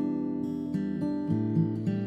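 Instrumental music: an acoustic guitar playing plucked, strummed chords with ringing notes.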